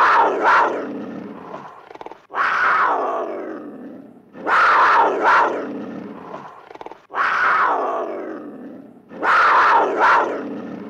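A loud animal call repeated five times, each starting suddenly and fading away over about two seconds.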